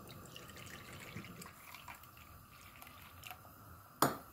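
Liquid poured from a stainless steel tumbler into a small plastic measuring cup: a faint trickle and splash. About four seconds in, a sharp knock as the steel tumbler is set down on the counter.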